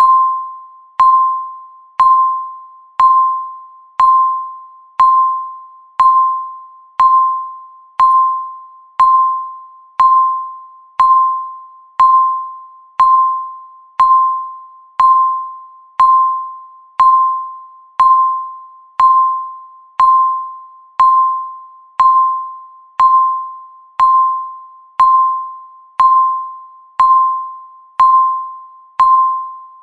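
Countdown-timer beep sounding once every second: a single clear electronic tone that strikes sharply and fades away before the next one.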